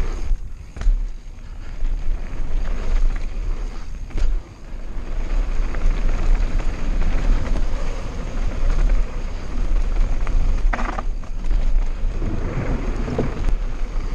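Mountain bike descending a dirt trail at speed: wind buffeting the microphone over the rumble of knobby tyres on dirt, with several sharp knocks and rattles from the bike over bumps.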